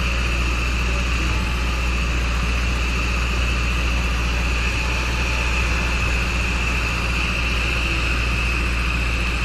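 Light propeller aircraft's engine running steadily in flight, a constant drone with a steady higher whine over it.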